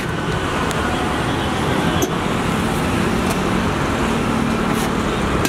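Steady road traffic noise from passing vehicles, with a low engine hum in the second half and a single brief click about two seconds in.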